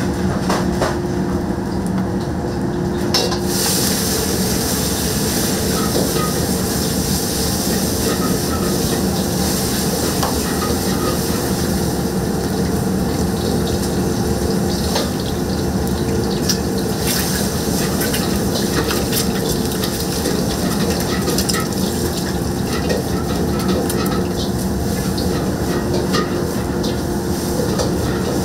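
Restaurant wok station: a steady burner hum under metal clinks of a ladle or spatula against a wok. A hiss comes in about three seconds in.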